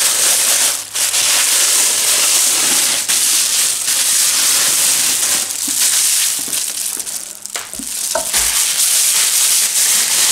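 Thin plastic bag rustling and crinkling loudly as a large raw pork joint is worked out of it, with a brief lull and a couple of dull knocks about eight seconds in.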